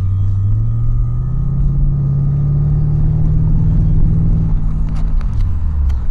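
Car engine and road rumble heard from inside the cabin: the engine note rises over the first couple of seconds as the car accelerates, holds steady, then drops away about five seconds in as it eases off.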